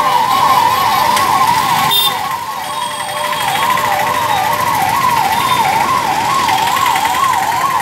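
Emergency vehicle siren wailing up and down in pitch about twice a second, over a steady background rush.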